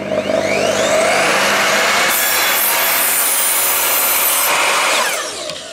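Evolution R255SMS sliding mitre saw making a 45-degree mitre cut in wood: the soft-start motor spins up with a rising whine, the blade cuts through the wood for about two seconds in the middle, and the motor winds down with a falling whine near the end.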